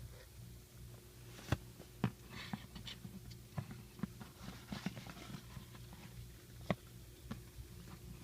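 Irregular light clicks and taps, sharpest about one and a half, two and six and a half seconds in, over a low steady hum.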